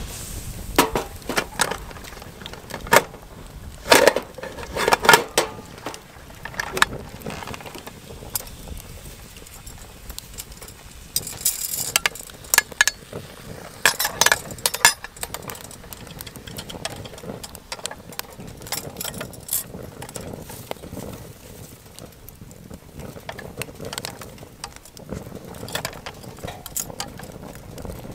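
Metal camp cookware and utensils being handled: irregular sharp clicks, knocks and clinks, in clusters with short gaps between them.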